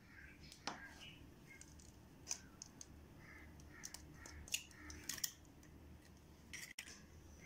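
Eggs cracked open by hand over a plastic bowl: a few faint, sharp cracks and clicks of the shells breaking. Faint bird calls go on behind them.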